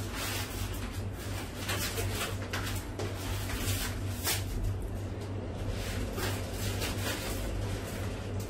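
Boning knife trimming membrane and fat from a hanger steak on a plastic cutting board: irregular short rasping and slicing strokes as the meat is cut and pulled, over a steady low hum.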